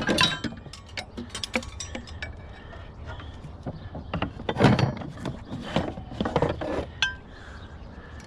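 Scrap metal and junk being handled: a run of clinks, knocks and rattles, with louder clatters about halfway through and again a second or so later.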